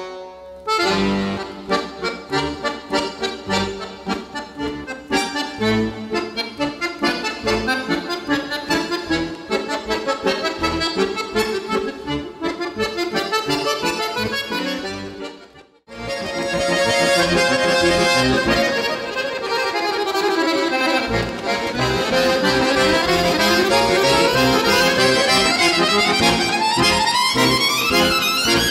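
Two piano accordions playing a folk tune together in short, rhythmic notes; about halfway through the music stops for a moment and another piece begins, fuller and busier, with quick rising and falling runs.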